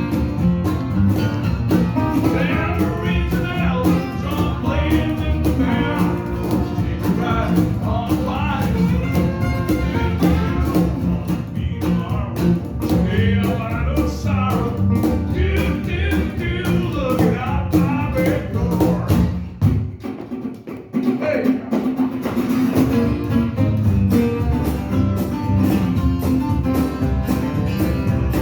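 Live country-rock band with guitars and a singing voice playing an up-tempo song. About two-thirds of the way through, the band drops away briefly to a much quieter moment, then comes back in at full strength.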